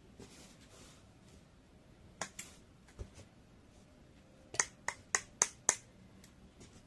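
Sharp clicks: two close together about two seconds in, a single one at three seconds, then five quick ones about three a second near the end.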